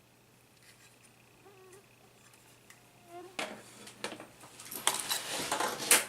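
Clicks and scraping of laptop casing and parts being handled and pried apart, starting about halfway in and loudest near the end, after a few faint squeaks.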